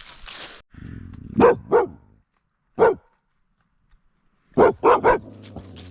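Dog barking in short sharp barks: two together, a single one, then a quick run of three, after a brief rustle at the start.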